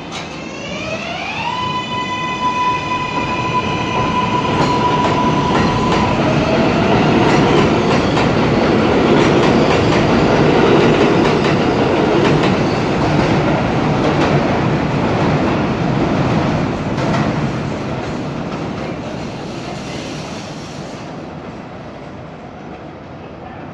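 R188 subway train pulling out of the station: its traction motors whine, rising in pitch for about a second and a half and then holding one note for a few seconds, while wheel and rail noise with some clickety-clack builds, is loudest about ten seconds in, and fades as the train moves away.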